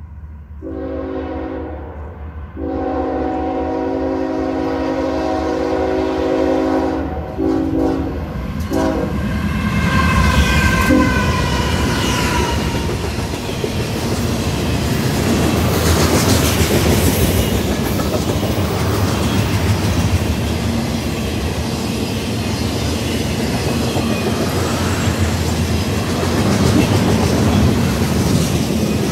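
Norfolk Southern freight train's horn sounding several blasts, the last one falling in pitch as the locomotives pass. This gives way to the steady rumble of the diesel locomotives and the clatter of loaded ethanol tank cars rolling over the rail joints.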